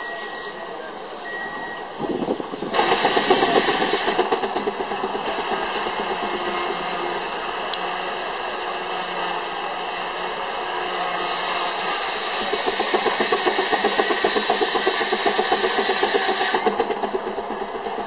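Steam traction engine driving a belt-fed sawmill under load, its exhaust beating fast and evenly with steam hiss over it. The sound grows much louder about three seconds in, and a loud hiss rides over the beat again from about eleven to sixteen and a half seconds.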